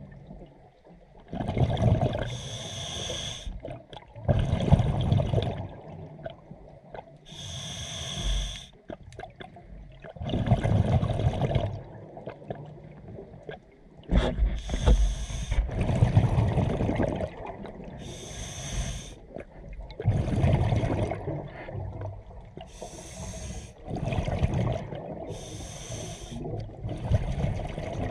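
A scuba diver breathing through a regulator underwater: hissing breaths alternating with low bubbling rumbles, repeating every few seconds.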